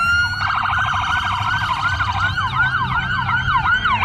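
Several police vehicle sirens sounding together in overlapping wails and yelps. About half a second in they switch to a fast warble, and back to quick up-and-down yelps a couple of seconds later, over a low engine rumble.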